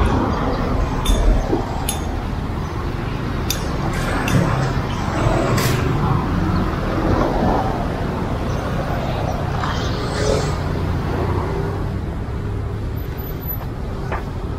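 Road traffic: a steady rumble of passing cars and vans, with a few sharp clicks in the first few seconds.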